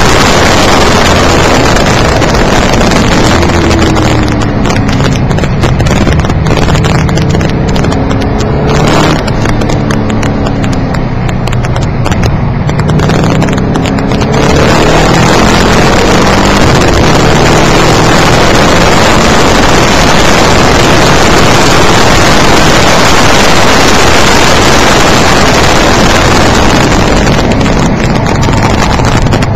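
Car engine and road noise inside the cabin during hard track driving, loud and harsh because the microphone is set to sensitive. Between about four and fourteen seconds the engine note rises and falls through changes in revs and the hiss eases, then the full loud rush returns.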